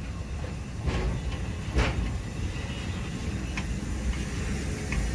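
Ballast hopper wagons rolling slowly along the track, a steady low rumble with a couple of clunks about one and two seconds in.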